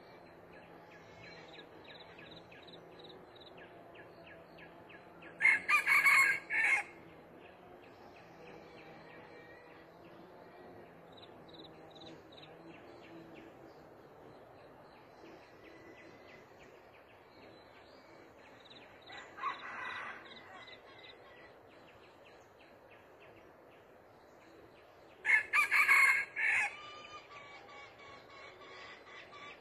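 Red junglefowl rooster crowing: a short, clipped crow about five seconds in and another near the end, with a fainter, more distant crow in between.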